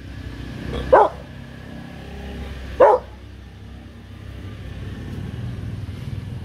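Four-month-old Rottweiler puppy giving two single sharp guard barks about two seconds apart, over a steady low hum of street traffic.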